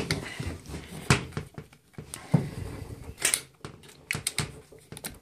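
Irregular clicks and knocks of a VFC M4 airsoft rifle being handled while its upper receiver is taken off.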